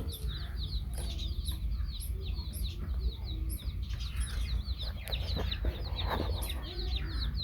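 Baby chicks peeping continuously, many short falling cheeps overlapping several times a second, with a few lower clucks from the hen among them. A steady low rumble runs underneath.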